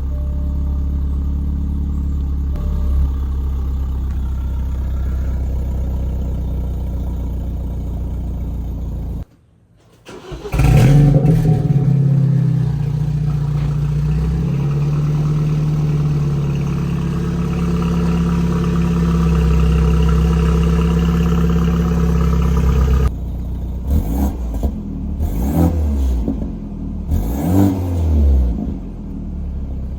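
BMW 428i engine running through a newly fitted AWE axle-back exhaust. It idles steadily and breaks off in about a second of near silence around nine seconds in. It then comes back at a louder, higher idle, and from about 23 seconds on gives a series of throttle blips, the revs rising and falling.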